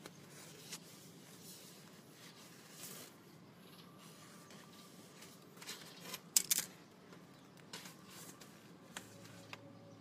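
Close handling noise: scattered small clicks and rustles from working with cables and tools, with a sharper cluster of clicks about six and a half seconds in, over a steady low hum.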